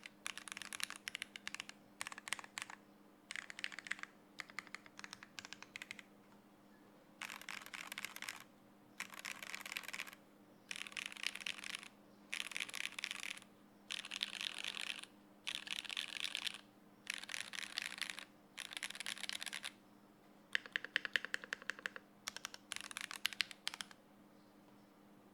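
Typing on a Smith & Rune Iron165 R2 mechanical keyboard with lubed Gateron Oil King linear switches, a forged carbon fibre plate, GMK keycaps and no sound dampening. Fast runs of keystrokes come in bursts of about a second, with short pauses between them and sparser, sharper strokes near the end.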